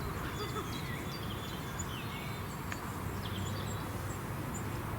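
Small birds chirping and singing, many short high calls, over a steady low rumble.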